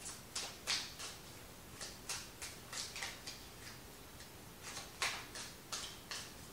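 Tarot cards being shuffled by hand: a string of short, irregular card slaps and clicks, about sixteen over six seconds.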